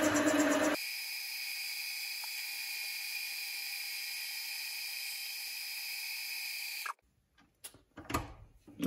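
Small metal lathe running while facing the end of a brass bar: a steady high-pitched whine that stops suddenly about seven seconds in. A few light clicks and knocks follow.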